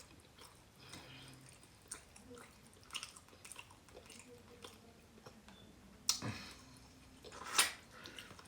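Close-miked eating sounds: soft chewing with scattered wet mouth clicks and smacks, two louder smacks about six and seven and a half seconds in.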